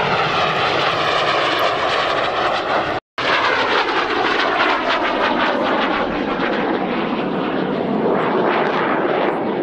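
Cessna A-37B Dragonfly's twin J85 turbojets in a low flyby: a loud jet whine that slides down in pitch as the aircraft passes, broken by a brief cut about three seconds in, then a steady rush.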